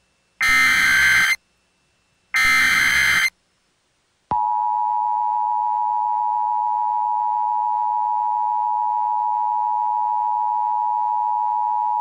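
Emergency Alert System broadcast tones: two harsh, buzzing SAME header data bursts, each about a second long with a short gap between them. After about a second of silence, the steady two-tone EAS attention signal starts a little over four seconds in and holds.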